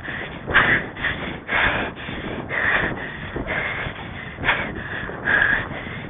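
Rider's heavy, rapid breathing, a hard breath about once a second, over a steady rough rushing background.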